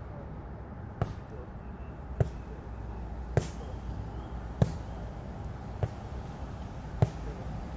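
Sharp, short knocks repeating at an even pace, about one every 1.2 seconds, six in all, over a faint steady background.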